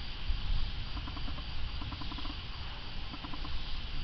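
Wind picking up ahead of an approaching storm: a low, uneven rumble of gusts on the microphone with a steady hiss of moving leaves.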